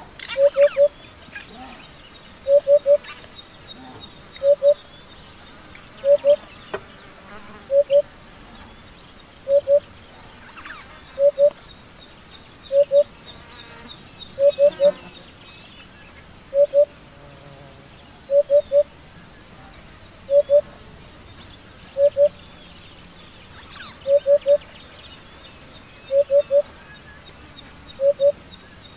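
African hoopoe singing its soft hollow 'hoop-hoop' song: low hoots in groups of two or three, repeated about every two seconds.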